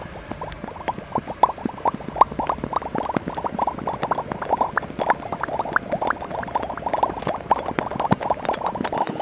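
Dense white foam crackling and fizzing, with many small irregular pops, as its bubbles burst while it slumps and spreads.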